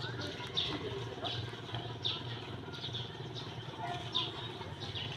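A bird chirping repeatedly, short high downward notes about once a second, over a low steady hum.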